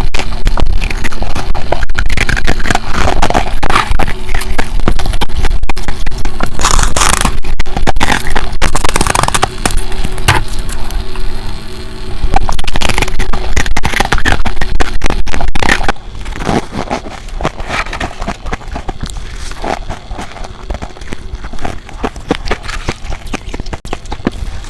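Close-miked biting and crunching of humidifier ice: a dense, continuous run of crisp crunches that grows noticeably softer about two-thirds of the way through.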